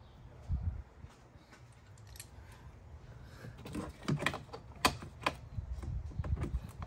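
Light plastic clicks and knocks as a hand handles and snaps down the red plastic cover on the car battery's terminal. There is a single click about half a second in, then a quick run of them over the last three seconds.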